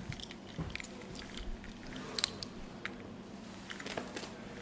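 Scattered light clicks, taps and rustles of a person walking to a lectern and handling a laptop, over a steady low room hum.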